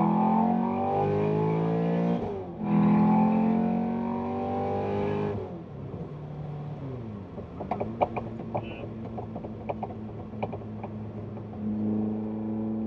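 TVR Cerbera engine through its newly fitted exhaust back box, heard inside the cabin, accelerating hard with rising revs, a brief dip for an upshift about two seconds in, then climbing again. About five seconds in the revs fall away as the driver lifts off, and the engine settles to a steady cruise with a scatter of light crackles.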